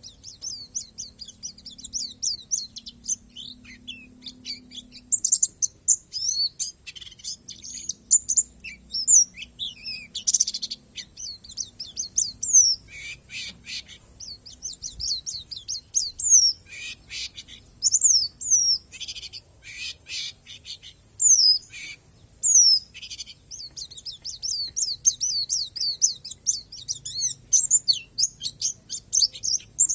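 Pleci palas, a Bornean white-eye, singing a long, fast twittering song of high chirps and short whistled glides. In the middle it breaks into several runs of quick rattling notes.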